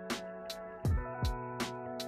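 Background music with a steady electronic beat: deep bass kicks that slide down in pitch, sharp snare-like hits, and held synth chords.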